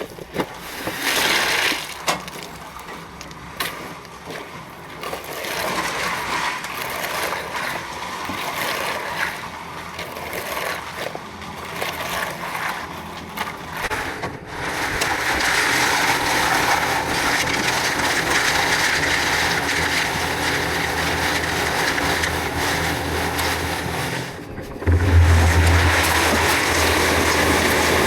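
Irregular knocking and scraping of work on a building site. About halfway through, a heavy machine's engine starts a steady run, and it gets louder near the end.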